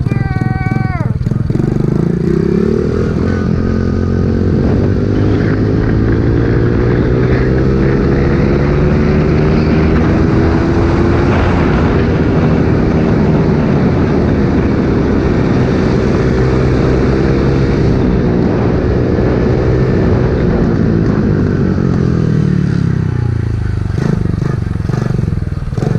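Pit bike's small single-cylinder engine accelerating, its pitch climbing over the first several seconds, then running fairly steadily before easing off and slowing down near the end.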